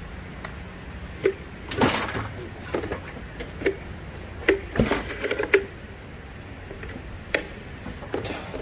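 Hand tools and metal parts clinking and knocking during repair work: a string of irregular sharp clicks and clanks, busiest about two seconds and five seconds in.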